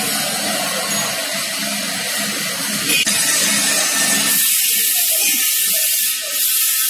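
Compressed air hissing steadily at the air supply hose and filter regulator of a pneumatic control valve actuator, with a click about three seconds in; after that the hiss turns brighter and higher-pitched.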